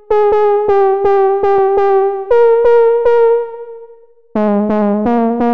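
Serum software synth playing a detuned lead preset with an LFO on its fine tuning: quickly repeated notes, each with a sharp attack and a short decay, stepping up in pitch about two seconds in. After a short dip in level, a fuller phrase with lower notes underneath starts about four seconds in.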